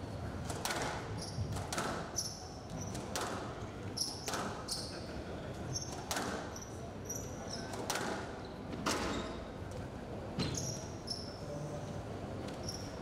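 Squash rally: sharp hits of the ball off rackets and walls about once a second, mixed with short high squeaks of shoes on the court floor.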